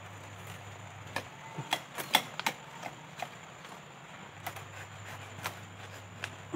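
Scattered sharp snaps and crackles of dry bamboo stems and leaf litter as a young bamboo shoot is worked free at the base of a clump. The cracks come irregularly, about nine of them, and the loudest is about two seconds in.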